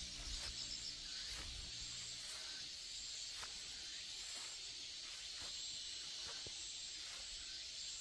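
Steady high-pitched insect chorus in summer woods, with a few faint clicks. Low background music fades out about two seconds in.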